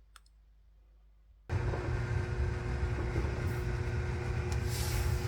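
Near silence, then about a second and a half in a steady machine hum starts abruptly: a strong low drone with a couple of faint steady tones above it.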